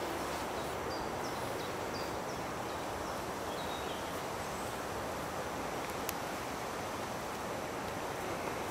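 Steady outdoor woodland ambience: an even rush of wind and rustling leaves, with a few faint, short bird chirps in the first few seconds and a single sharp click about six seconds in.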